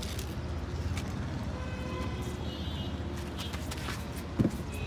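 Steady low outdoor rumble with scattered faint clicks, and a single sharp knock about four and a half seconds in.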